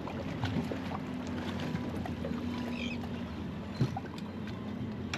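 Fishing boat on the open ocean: a steady low hum with scattered small clicks, and a single sharp knock a little before four seconds in as a small tuna is brought in at the stern.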